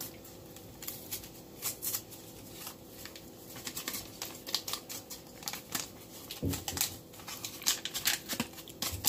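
Wire whisk clicking and scraping against a glass mixing bowl as baking powder is stirred into thick chocolate cake batter. The irregular ticks grow busier after about four seconds.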